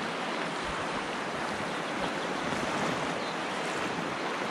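Rushing water of a river rapid: a steady, even rush of whitewater with no distinct splashes standing out.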